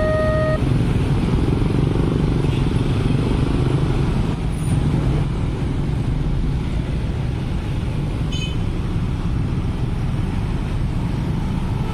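A stream of motorbikes and scooters, then a car, moving off across a railway level crossing as the barriers lift: a steady mix of many small engines and tyres. The crossing's electronic warning tones stop about half a second in.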